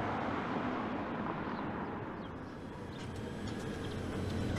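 Steady rumble of car traffic, easing off a little in the middle and swelling again near the end.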